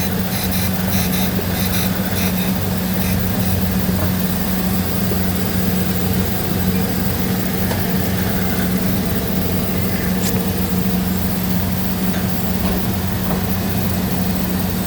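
Machine running with a steady hum on a strong low tone over a hiss, with a single sharp click about ten seconds in.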